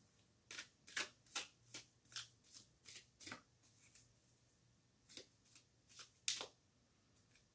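Tarot cards being shuffled by hand: a run of short, soft card strokes about two or three a second, a pause of a second or so, then a few more, one about six seconds in the loudest.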